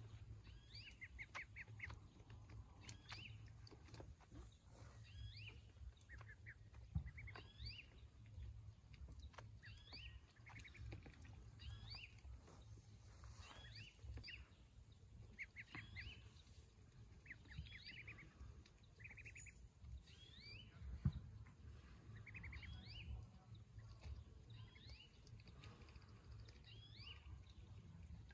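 Faint, high-pitched peeping of ducklings: short rising chirps and quick trills, about one a second, over a low steady rumble, with two soft knocks.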